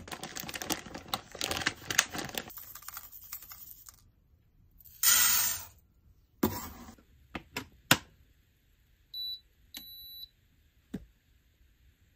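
Dry rice pouring and rustling out of a paper bag into a metal rice bin, then a scoop of rice poured into a cooker pot, with a few sharp knocks of the cup and lid. About three-quarters through, an electric pressure cooker gives two short high beeps as its buttons are pressed.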